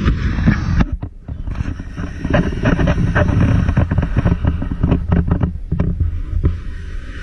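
Wind buffeting the camera's microphone: a loud, uneven low rumble with irregular crackles.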